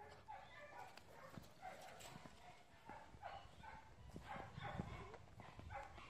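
A dog giving a faint run of short, high whines or yips, about two a second, with scattered light clicks and knocks.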